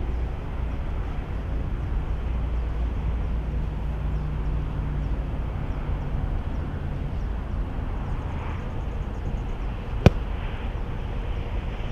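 A golf club striking a ball off a hitting mat: one sharp crack about ten seconds in, over a steady low rumble.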